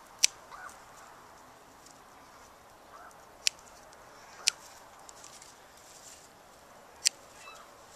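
Pruning scissors snipping through small rhododendron shoots and dead flower heads: four sharp snips a second or more apart, with a few fainter ticks between.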